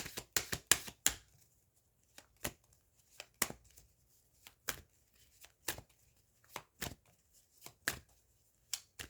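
A tarot deck being shuffled by hand: a run of sharp card slaps and clicks, quick for the first second and then spaced about one or two a second.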